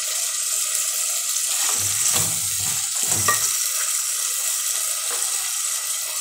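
Tomato stew base sizzling in an aluminium pot as pieces of boiled beef go in and are stirred with a wooden spoon, with a couple of dull knocks from the spoon and bowl around two and three seconds in.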